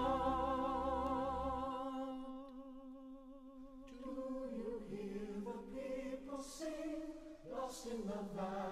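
Musical-theatre song: a held sung chord with vibrato fades away over the first couple of seconds, and about four seconds in a choir starts singing softly.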